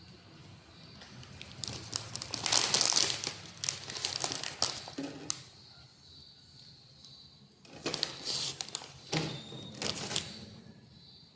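Eating and food-handling noises of fried sausages: crinkling and quick clicks with chewing, in two bursts, the first starting about a second and a half in and the second about eight seconds in.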